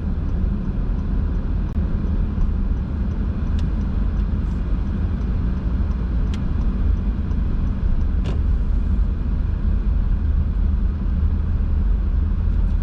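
A car driving, with a steady low rumble of road and engine noise and a few faint clicks.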